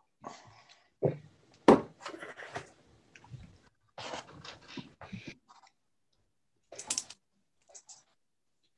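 Scattered small handling noises (clicks, knocks and rustles) picked up by the open microphones of a video call. One sharp click nearly two seconds in is the loudest.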